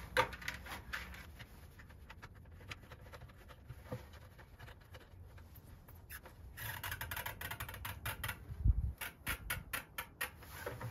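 Small plastic clicks and rubbing as a plastic wing nut is screwed by hand onto the threaded elbow of an auto-fill chicken watering cup inside a plastic 5-gallon bucket. There is a dull thump about nine seconds in.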